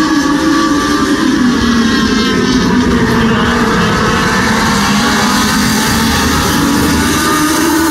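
Several Legends race cars' motorcycle-derived four-cylinder engines running hard together as a pack circles the oval, a steady, wavering multi-engine drone.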